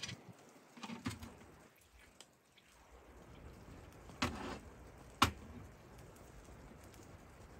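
A few short clicks and knocks of a small glass bottle being handled on a camp table, the sharpest about five seconds in as it is set down.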